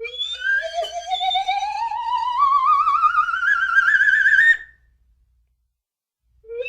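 Slide whistle cartoon sound effect: one long note sliding slowly upward in pitch with a wobbling vibrato, cutting off after about four and a half seconds. A second rising slide starts near the end.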